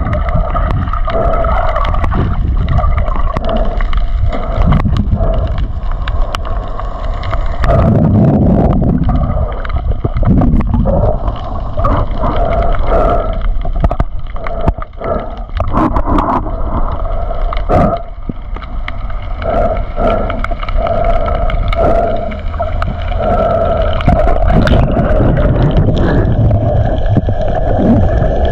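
Muffled underwater sound picked up by a camera held below the surface: a continuous low rumble of moving water with gurgling and sloshing, and scattered short knocks.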